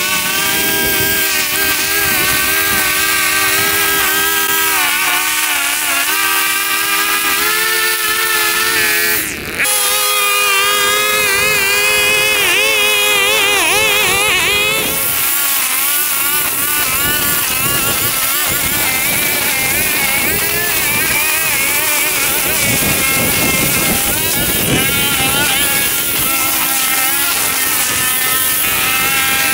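Petrol lawn mower engine running under load while cutting tall, overgrown grass, its pitch wavering up and down as the load changes.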